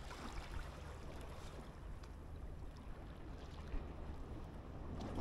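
Steady sea ambience: water moving against the shore rocks, with a low wind rumble on the microphone.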